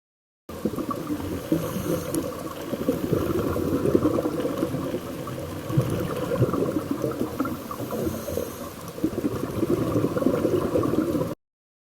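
Muffled underwater bubbling and crackling heard through a dive camera's housing. It starts abruptly about half a second in, dips briefly near the end, and cuts off suddenly.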